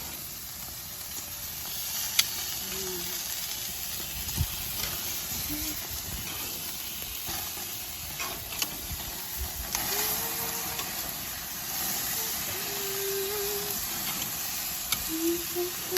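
Chicken breast pieces sizzling on a grill at medium-high heat as they are turned over, a steady hiss broken by a few sharp clicks.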